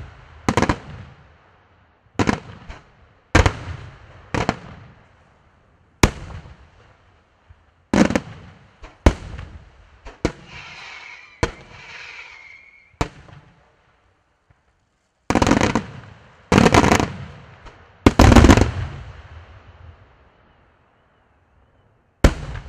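Aerial firework shells bursting: a string of sharp booms, each trailing off in a rolling echo, with a stretch of hissing crackle around the middle. The heaviest cluster of bangs comes a few seconds before a short lull, and one more bang lands near the end.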